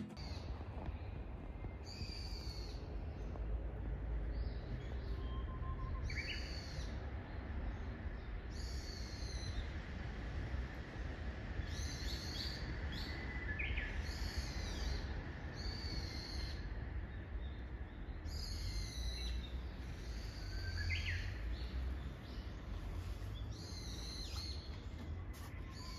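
Small songbirds calling: short, high, falling calls repeat every second or two, with a few fainter rising whistled notes now and then. A steady low rumble of background noise runs underneath.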